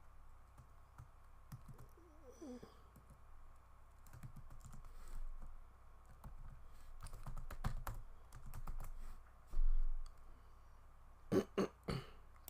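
Typing on a computer keyboard: irregular runs of key clicks, with one dull low thump a little past two-thirds through, the loudest sound here.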